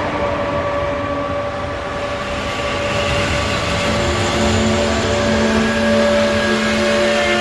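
Train running on the line: a steady rumble with several steady whining tones, a lower tone coming in about four seconds in.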